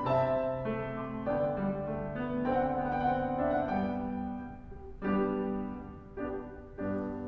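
Grand piano playing the solo closing bars of a classical song accompaniment once the voice has stopped: a slow series of chords, each struck and left to ring.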